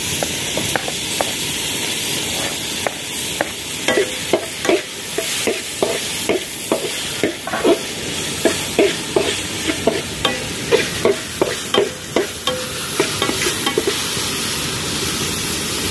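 Onions, tomatoes and green chillies sizzling in hot coconut oil in an aluminium pot, while a perforated metal skimmer stirs them, scraping and clinking against the pot a few times a second. The stirring stops a few seconds before the end and only the steady sizzle goes on.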